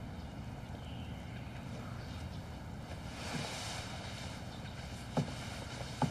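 Steady low ambient rumble, with a brief swell of hiss about three seconds in and two short knocks near the end.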